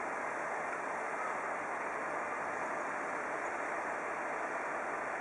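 Steady hum of idling vehicle engines, an even noise with no distinct events.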